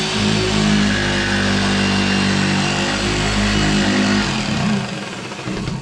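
Corded jigsaw cutting through a birch plywood panel, its motor running steadily with the blade rasping through the wood. The sound drops off near the end.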